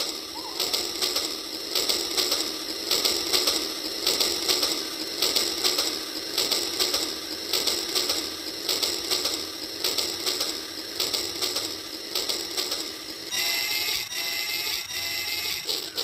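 Battery-powered Rail King toy train running on plastic track: a steady rapid clicking and whirring of its small motor and plastic gears, pulsing as it goes. A repeating electronic tone pattern sounds over it in the last couple of seconds.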